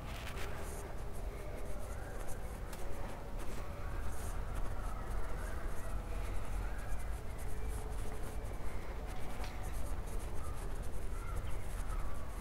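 Outdoor ambience from a handheld camera carried at walking pace: a steady low rumble of wind and handling noise, with irregular scuffs and scratchy rubbing on the microphone. Faint short bird chirps come through now and then.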